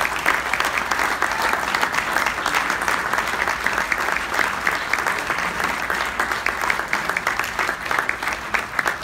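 An audience clapping steadily: dense, sustained applause from a roomful of people.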